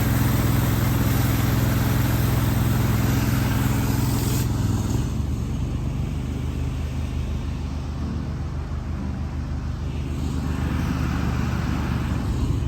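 Gas pressure washer running steadily, its engine humming under the hiss of the high-pressure spray; the hiss is loudest for the first four seconds or so, then drops back.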